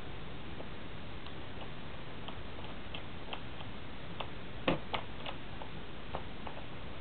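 Scattered small clicks and ticks over a steady hiss as the soundbox and tone arm of a portable wind-up gramophone are handled over the spinning record. A louder knock followed by a second click comes about four and a half seconds in.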